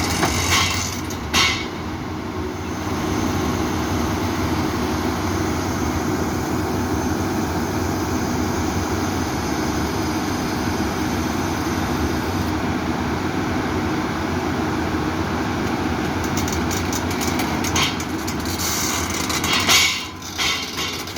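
Kobelco SK200 crawler excavator's diesel engine running steadily under load while the machine drives up to be loaded, with metallic clanks from its steel tracks about a second in and a quick run of rattling clanks near the end.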